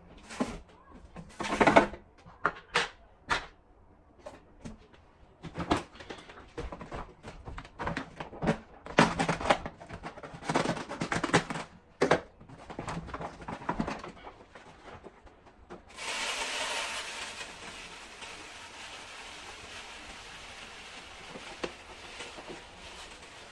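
Kitchen clatter: irregular knocks and clinks of dishes, utensils and containers being handled while cleaning up. About two-thirds of the way through the clatter gives way to a steady rush, like a tap running.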